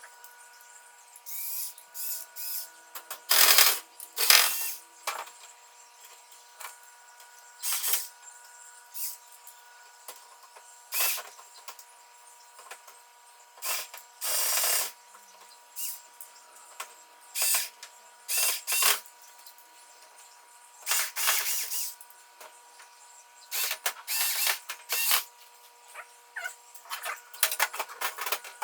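Handling noises of plant pots and shelves being shifted, lifted and set down: irregular scrapes, knocks and rustles, loudest a few seconds in. A faint steady hum runs underneath.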